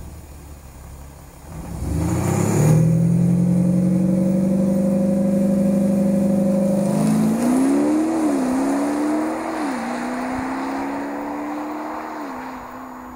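Audi SQ5 Plus's 3.0 twin-turbo V6 diesel heard from behind at the tailpipes. The revs sink back, then rise quickly about two seconds in and are held steady for several seconds. Then the car pulls away under acceleration, the pitch climbing and dropping at three upshifts as the sound fades into the distance.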